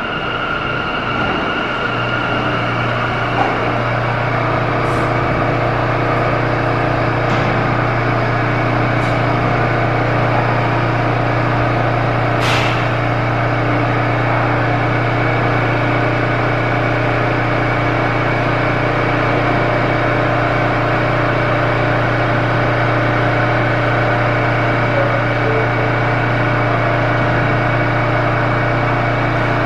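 Bombardier R179 subway train standing in the station, giving a steady low hum with several steady higher tones. There is a single sharp click about twelve seconds in.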